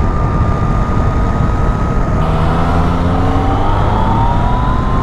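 Motorcycle riding along at road speed, its engine running under a steady rush of wind noise; from about halfway through the engine's pitch climbs gradually as the bike speeds up.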